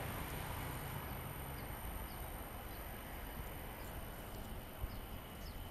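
Faint outdoor ambience: a steady low rumble with a steady high insect-like hum, and short, faint high chirps every second or so.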